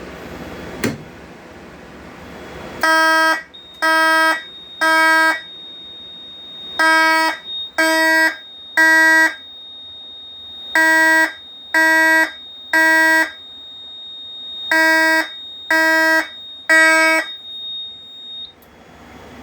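A fire alarm system going into alarm after a pull station is pulled: a click about a second in, then the horn sounding in the temporal-three evacuation pattern, three short blasts and a pause, four times over. Under the blasts runs a steady high-pitched tone that stops near the end.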